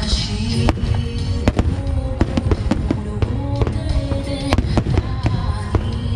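Aerial fireworks shells bursting in a rapid, irregular string of sharp bangs, the loudest about one and a half seconds in. Music plays along with the display.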